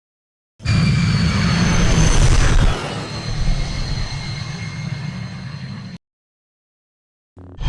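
T6 Jedi shuttle flyby sound effect: a loud engine rumble with high whining tones that fall in pitch as the ship passes. It starts abruptly about half a second in, then trails off as a quieter rumble and cuts off sharply about six seconds in.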